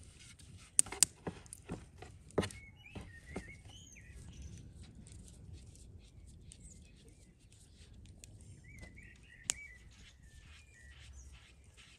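A metal dough scraper chopping through soft dough and knocking on a wooden board, a run of sharp taps in the first few seconds and one more later on. Small birds chirp faintly over it.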